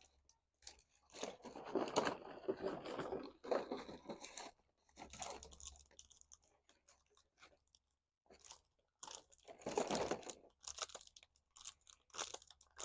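German Shepherd puppies chewing and crunching small pieces they have found, in irregular spells of crackly bites with short pauses between.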